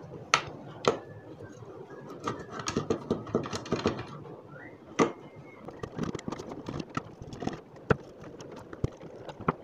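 Screwdriver working the screws out of a blender's plastic motor base, with irregular small clicks, scrapes and a few sharper knocks of metal on plastic as the housing is handled.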